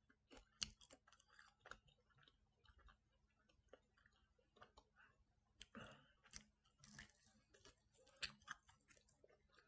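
Faint chewing of an air-fried chicken wing: a scatter of small mouth clicks, busier around the middle, with a sharper click from a fresh bite about eight seconds in.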